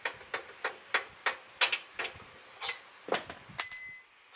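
Steel punch being tapped against the Honda CT70's swing arm pivot bolt to drive it out of the frame, sharp metallic taps about three a second that thin out later. Near the end comes a brief, high-pitched metallic squeal, the loudest sound.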